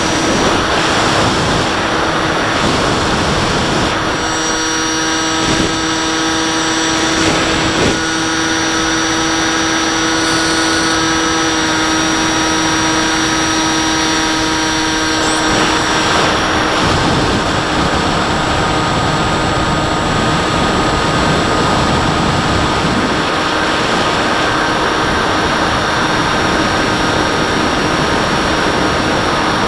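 Multiplex Bix3 model plane's electric motor and pusher propeller running in flight, heard from the onboard camera: a steady whine over rushing airflow. Its set of tones shifts about four seconds in and again about fifteen seconds in.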